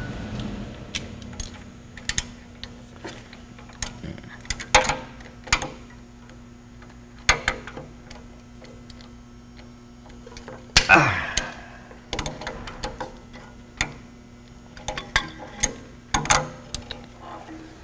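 Locking pliers (vice grips) clamping and working stainless steel brake lines on an electric forklift, bending them back and forth until they break: scattered metallic clicks and clanks, with a louder clatter and a falling ring about eleven seconds in, over a steady low hum.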